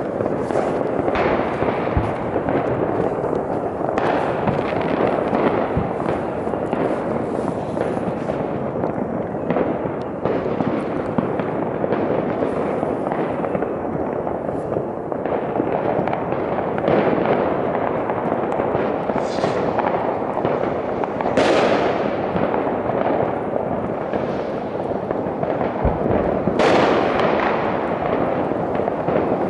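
Fireworks and firecrackers going off all around: a steady din of many overlapping crackles and bangs, with a few louder bangs in the second half.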